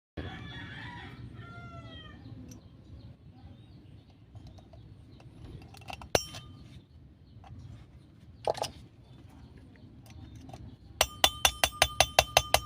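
A rooster crows, a falling call in the first couple of seconds. Later come a sharp click and a knock, then near the end a rapid run of about a dozen ringing metal clinks, the loudest sound here.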